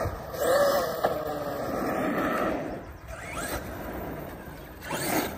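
Arrma Outcast 8S EXB radio-controlled car's brushless electric motor whining as it is driven across asphalt, rising in pitch several times as it is throttled up and easing off in between.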